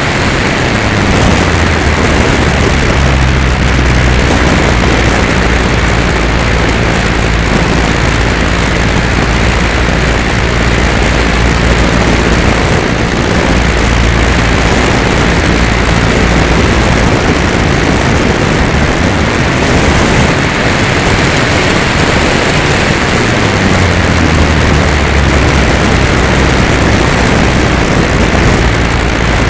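The electric motor and propeller of an E-flite Carbon-Z Cessna 150 RC plane, recorded by a camera on the plane under heavy wind rush. The low motor hum drops in pitch with throttle changes about a second in and again near the end.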